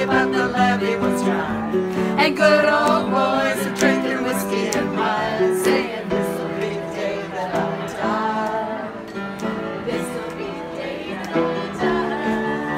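A group of people singing a song together in unison, accompanied by a guitar.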